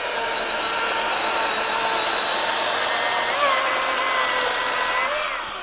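Milwaukee M18 FUEL 2727 cordless chainsaw's brushless motor and chain running at full speed, bucking through a log of wet, freshly cut oak: a steady high whine over the rasp of the chain. The pitch dips briefly about three and a half seconds in as the chain bites, then the saw winds down near the end.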